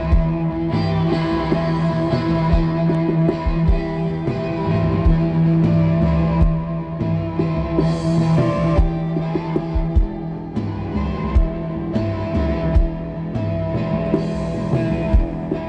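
Live rock music: electric guitar playing over a steady held low note, with scattered drum hits.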